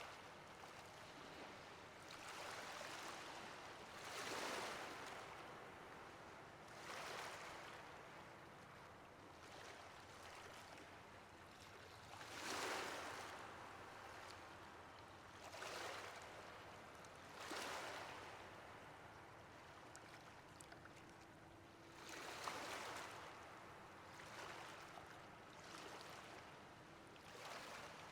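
Ocean waves washing in, heard as a soft, steady hiss that swells and fades with each wave, about eight surges at uneven gaps of two to five seconds; the biggest come about four seconds in and near the middle.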